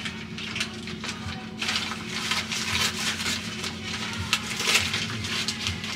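Brown paper bag crinkling and rustling in several irregular bursts as it is unwrapped and handled, over a steady low hum.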